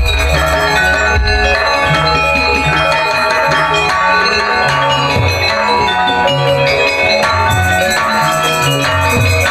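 Madurese ensemble music in ladrang form: kendang drumming over melodic instruments and a heavy, booming bass line that steps from note to note.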